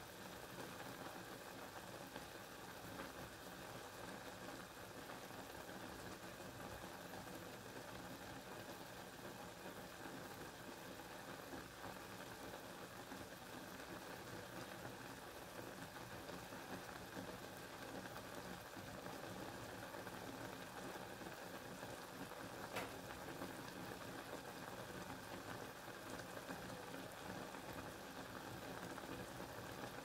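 Steady rain, a faint even hiss of falling water, with one sharp click about twenty-three seconds in.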